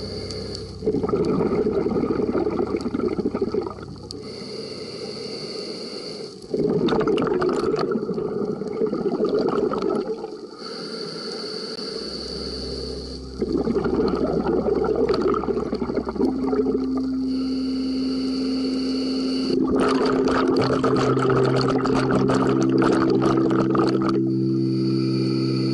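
Scuba diver breathing through a regulator underwater: each exhale sends out a loud rush of bubbles lasting about three seconds, about every six seconds, with quieter inhales between them.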